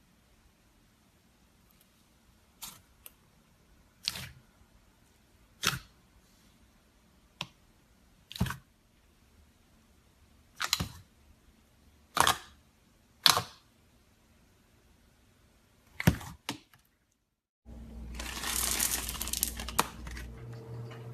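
Slime being pressed and squeezed, giving sharp clicking pops about every one to two seconds. After a brief cut, a denser run of crackling squishes comes near the end.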